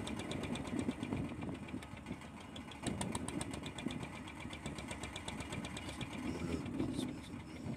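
Fishing boat's engine running steadily, with a fast, even ticking over a low rumble.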